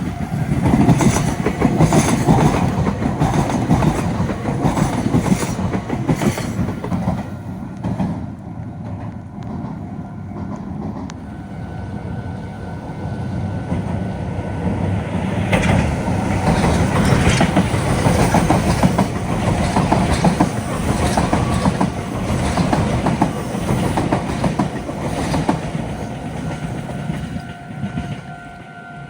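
Meitetsu electric trains running through a railway junction, wheels clattering rhythmically over rail joints and points. A level-crossing warning bell rings steadily under the train noise. The rumble eases about a third of the way in, then builds again as another train passes.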